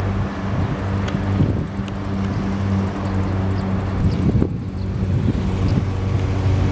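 Steady low hum of an engine running, with wind on the microphone and a brief break about four and a half seconds in.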